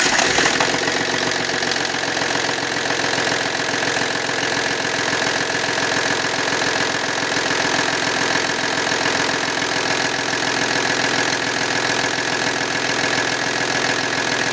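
Car engine catching at the start, then idling steadily with its accessory belts removed, so nothing but the bare engine is running; it is run this way to find out whether a knock comes from the engine or from the power steering pump.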